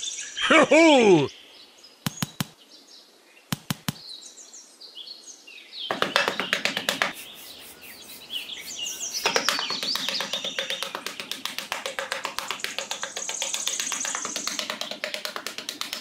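A small metal hand trowel digging and scraping in sand in quick rapid strokes, starting about six seconds in and running on. Before it come a few sharp taps and a short sound sweeping up and down in pitch. Bird chirps are heard near the end.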